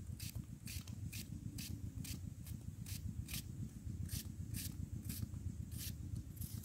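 Kitchen knife slicing through a peeled cucumber held in the hand: a short, crisp cut about twice a second, in a steady rhythm.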